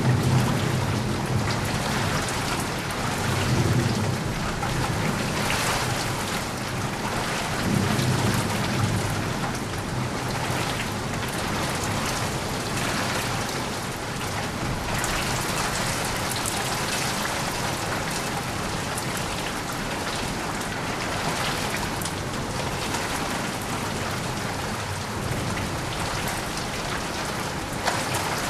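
Steady heavy rain falling, with low rolls of thunder rumbling in the first several seconds and dying away, leaving rain alone.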